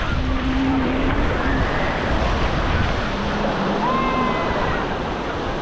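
Ocean surf washing onto the beach, a steady rushing wash, with wind on the microphone and faint distant voices.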